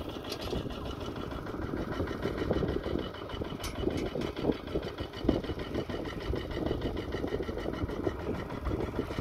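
Small engine idling steadily with an even chugging pulse, with two sharp knocks about halfway through.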